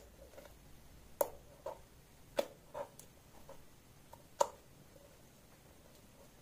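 Clear slime being pressed and kneaded by hand, giving about six sharp, sticky pops and clicks at irregular intervals, the loudest a little past four seconds in.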